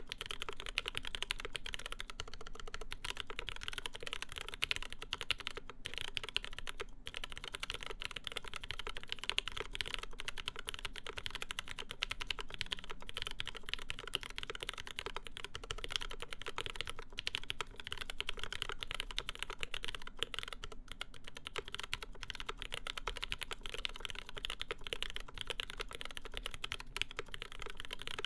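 Continuous fast typing on a custom mechanical keyboard with lubed linear Cherry MX Black switches fitted with UHMWPE stems, an aluminium plate and GMK keycaps: a steady stream of soft key clacks.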